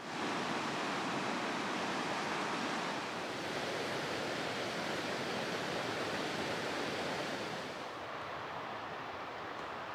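Steady, even rushing noise with no distinct events, easing slightly and losing some of its top near the end.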